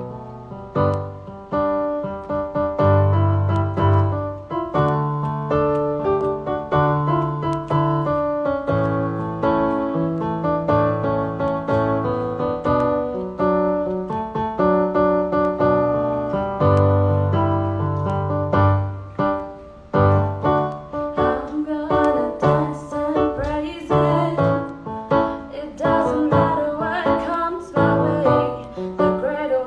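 Electronic keyboard playing a slow piano-voiced introduction of held chords over bass notes. A woman's singing voice comes in over the keyboard in the last third.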